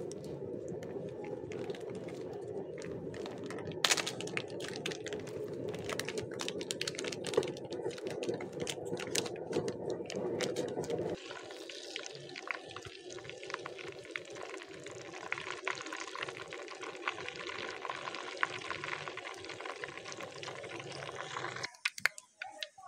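Cooking oil heating in a clay cooking pot, crackling and sizzling. A steady low rush underneath stops abruptly about eleven seconds in, and the sizzling goes on.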